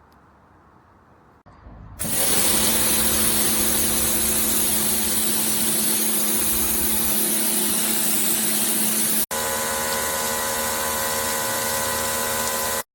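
Bosch UniversalAquatak 135 electric pressure washer running, with a steady motor hum under a loud hiss of spray, starting about two seconds in. About nine seconds in, a cut switches to a similar run with a slightly different hum, which stops abruptly near the end.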